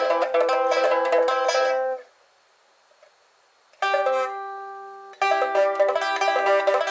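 Pipa being played: a stream of fast plucked notes breaks off about two seconds in. After a short silence a single chord is struck and left to ring, and the fast plucking resumes about five seconds in.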